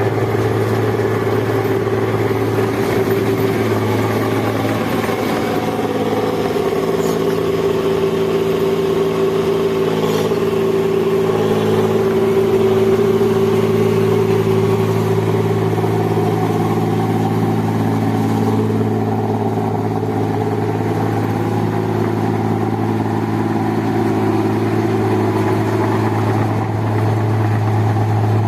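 Engine of a rice machine (mesin padi) running steadily at constant speed, an even hum with no revving.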